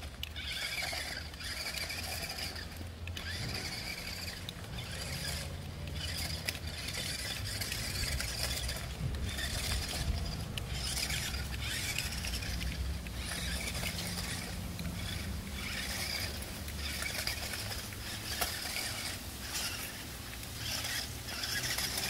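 DEERC DE45 rock crawler RC car's electric drive motor and gearbox whining as it drives, cutting in and out in short spurts with the throttle. A few sharp clicks sound along the way.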